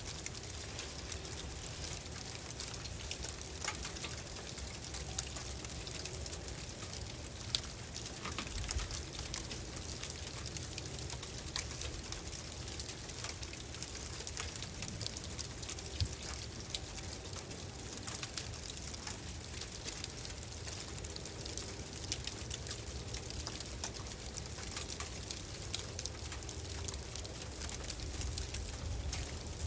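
Sleet falling: a dense, steady patter of small ice pellets ticking on surfaces, with a steady low rumble underneath.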